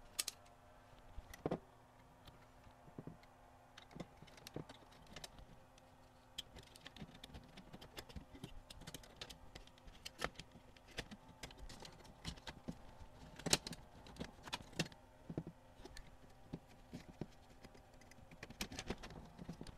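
Faint, irregular clicks and taps of the sheet-metal top plate and plastic parts of a CD changer's disc loading mechanism being handled and fitted together, with one louder clack a little past the middle, over a faint steady hum.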